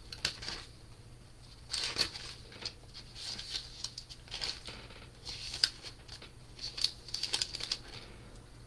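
Paper pages rustling and being turned by hand: a string of short, irregular papery crinkles and swishes, thickest in a quick cluster near the end.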